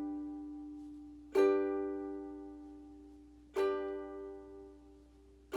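Ukulele strummed down on a G chord with a single downstroke about every two seconds, each left to ring and fade before the next.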